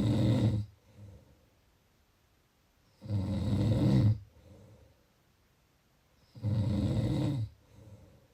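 A sleeping person snoring: three loud snores about three and a half seconds apart, each lasting about a second and followed by a short, quieter breath out.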